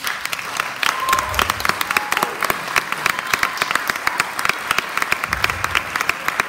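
Audience applauding: many people clapping together, breaking out suddenly and continuing steadily.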